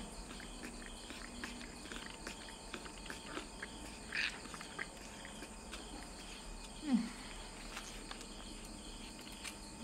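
Quiet background with a faint steady high chirring of insects and soft scattered clicks. A short high chirp comes about four seconds in, and a brief low falling vocal sound just before seven seconds.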